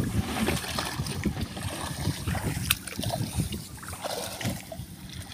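Footsteps wading through shallow water and mud in a flooded rice paddy: irregular sloshing and splashing with each step.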